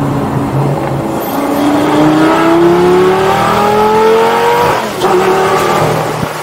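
2004 Lamborghini Gallardo's straight-piped 5.0-litre V10 accelerating hard: the engine note climbs for about three seconds, then drops sharply at an upshift about five seconds in.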